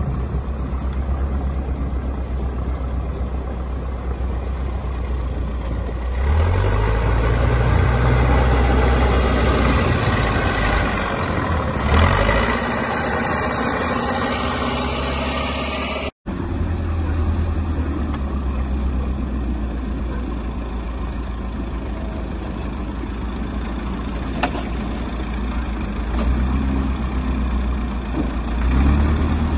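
An old wheel loader's diesel engine runs under load. About six seconds in it revs up and works harder for several seconds, then settles back to a steadier low run, and it rises again near the end. A brief gap about sixteen seconds in is an edit cut.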